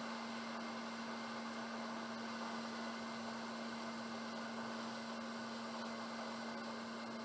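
Hot air rework station blowing steadily onto the board while the chip's solder is brought up to reflow: an even hiss with a steady low hum.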